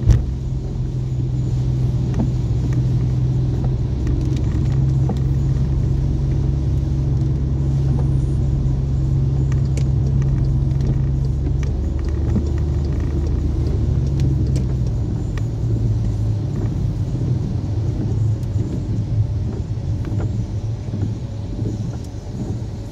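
A car being driven: a steady low drone of engine and road noise, which changes a little about twelve seconds in as the deepest part fades.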